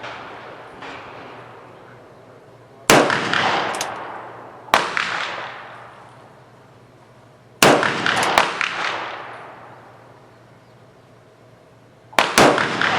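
Gunshots, each a sharp crack trailing off in a long echo. There are three loud shots a few seconds apart, a quick pair near the end, and a few fainter shots in between.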